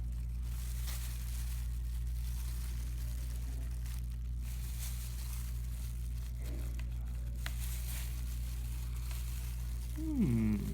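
Steady low electrical hum with a few faint small clicks and handling noises. A voice is heard briefly near the end.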